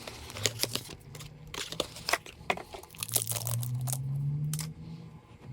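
Plastic packaging crinkling and tearing in a series of sharp crackles, as a new oil filter is unwrapped by hand. A low steady hum, rising slightly, comes in around the middle.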